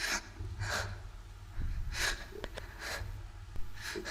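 A person's gasping breaths, about five of them roughly a second apart, over a low steady rumble.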